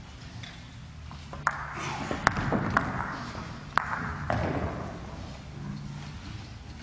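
Pool balls clacking together in a large hall: about five sharp, ringing clacks over about three seconds, starting about a second and a half in, over a low murmur of the room.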